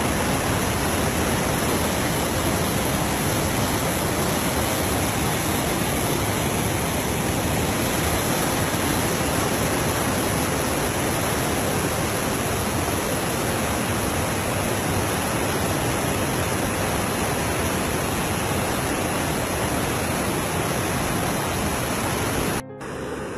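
Floodwater of a swollen river rushing through rapids: a loud, steady rush of water, cutting off suddenly near the end.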